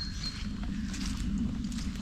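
Footsteps of a hiker walking on a woodland trail, several steps at an irregular pace, over a steady low rumble.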